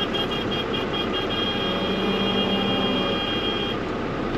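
Tractor engine running steadily, with a high electronic beeping that turns into a steady tone and cuts off near the end.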